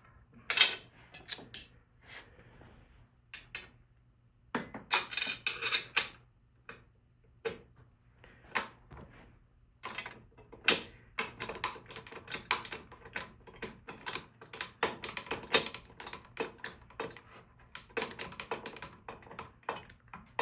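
Rapid, irregular metal clicking and clinking of a 1/2-inch wrench and lock nut being run onto a mounting bolt, getting busier about halfway through.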